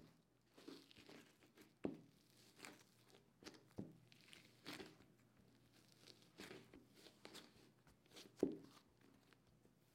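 Hands kneading and pressing crumbly glutinous rice dough on a silicone baking mat: faint, irregular squishes and pats. Two louder thumps come about two seconds in and again near the end.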